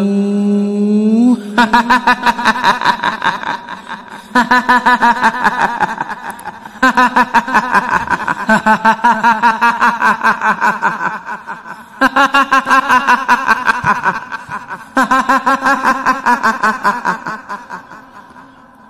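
A woman's voice doing the kuntilanak ghost's rapid 'hihihi' cackling laugh. It comes in five long bouts, each starting loud and fading away. About a second and a half in, a held voice note bends upward into the first bout.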